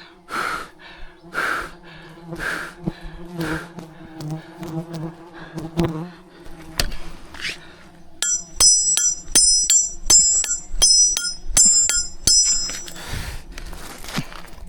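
Wild bees buzzing, a low steady hum. In the first half it comes with noisy swishes about once a second. From about eight seconds in, a high chirping repeats about twice a second, with sharp clicks.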